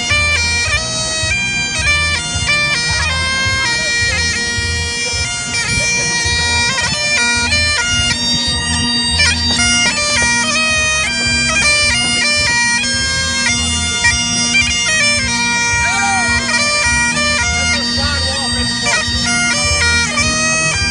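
Bagpipes playing a lively tune over a steady drone, with a low pulsing beat underneath.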